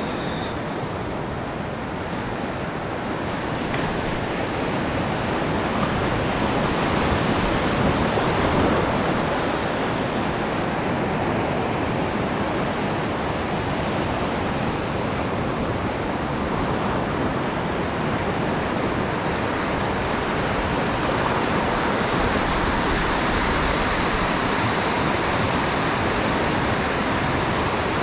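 Atlantic surf breaking and washing over the shallows in a steady rush, swelling louder about six to nine seconds in and turning hissier after about seventeen seconds.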